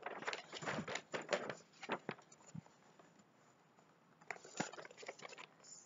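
Large paper poster rustling and crinkling as it is handled and folded, in two spells with a quiet gap in the middle.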